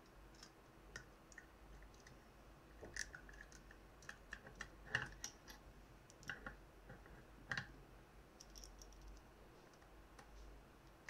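Faint, scattered small clicks and taps of hands fitting a screw and handling a 3D-printed light adapter on a stereo microscope, with a few sharper clicks in the middle.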